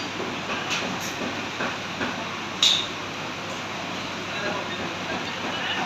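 Food-court background noise: a steady haze of distant voices and clatter, with light clicks about a second in and one sharp clink, the loudest sound, about two and a half seconds in.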